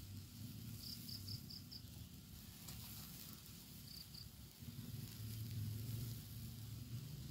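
Short high insect chirps in quick runs, five about a second in and two more near four seconds, over a faint hiss and low rumble from a wok of snails cooking over a wood fire.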